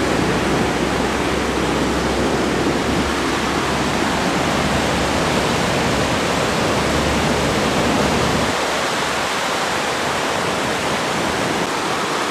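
Steady loud rush of a waterfall pouring through a narrow rock gorge. A low rumble underneath stops abruptly about eight and a half seconds in.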